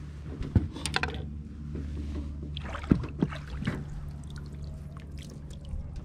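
A few sharp knocks and light clatter of fishing gear being handled in a small fishing boat, over a steady low hum.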